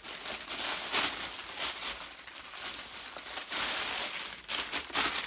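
Paper shopping bag and the wrapping around an item crinkling and rustling in irregular bursts as the item is pulled out and unwrapped.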